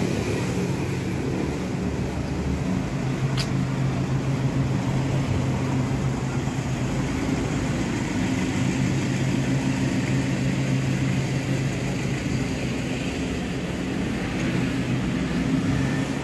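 Urban street traffic: a steady wash of car and motorcycle engines, with a low steady engine hum from a nearby vehicle through the middle. A single sharp click sounds about three seconds in.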